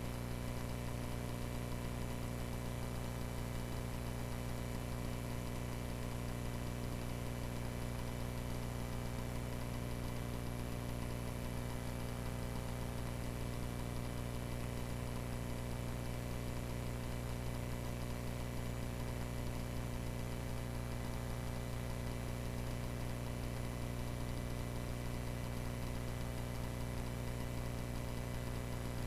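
Cessna 140A's small four-cylinder aircraft engine running at a steady power setting: a constant drone with a strong low hum and no change in pitch or level.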